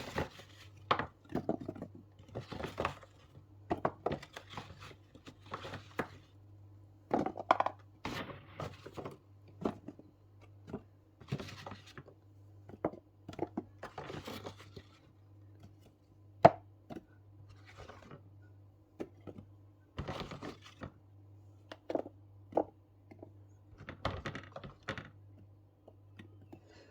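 Potatoes being put one after another onto a scale, making irregular knocks and thuds about every half second to a second, with a steady low hum underneath.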